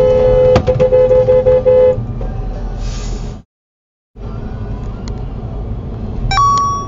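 Car horn honking at a car cutting in close alongside: one long blast, then a quick string of short toots. It sounds over steady road and engine rumble inside the moving car.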